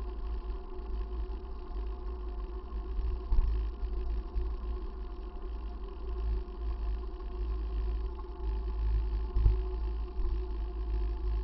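Wind rumble on a bicycle-mounted camera's microphone while riding along a road, uneven and steady throughout, with a faint constant hum over it and a couple of brief knocks.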